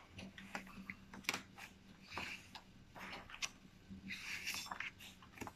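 Paper picture book being opened and its pages handled: faint paper swishes, two of them louder about two and four seconds in, among light taps and clicks against a wooden desk.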